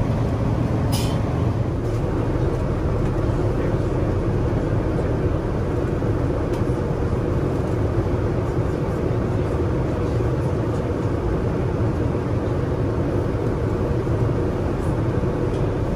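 Steady rush of engine and airflow noise inside a Boeing 787-9 cabin, a constant low hum with no change in pitch or level.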